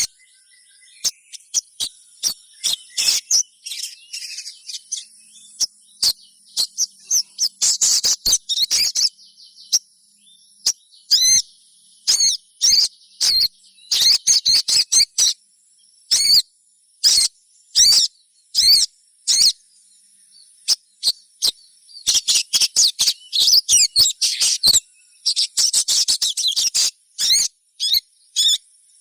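Little spiderhunter (sogok ontong) calling as a young bird does: sharp high chirps, some single and some in fast, run-together bouts, with the busiest stretch in the last third.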